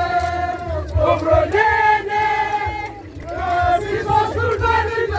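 A Papua New Guinea highlands singsing: a group of dancers chanting together in long held notes, phrase after phrase. Kundu hand drums beat steadily underneath.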